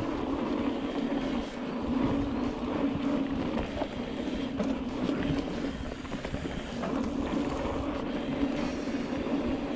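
Mountain bike rolling fast over a dirt singletrack: tyre noise and a steady hum, with many small rattles and clicks from the bike as it runs over the rough trail.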